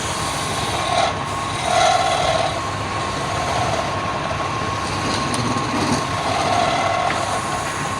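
Wood lathe running with a steady high whine and a constant grinding noise, the sound swelling now and then as the tool works the spinning wood.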